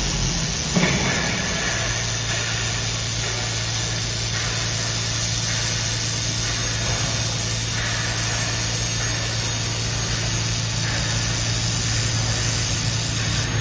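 Nuriş welding machine's engine running at a steady speed: a steady hum with a hiss over it. The deep rumble fades off in the first couple of seconds, with a short knock about a second in.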